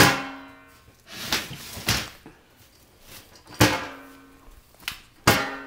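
Four loud bangs, roughly every one and a half to two seconds, each followed by a short ringing tone that dies away.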